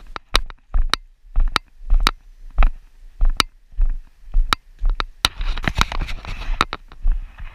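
Footsteps, about two a second, each a sharp knock with a low thud, as a person walks along the bank. A short rustle comes in about five and a half seconds in.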